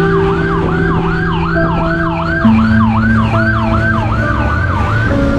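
Police siren sounding in fast repeated falling sweeps, about two and a half a second, over a steady low drone that steps up in pitch about halfway through.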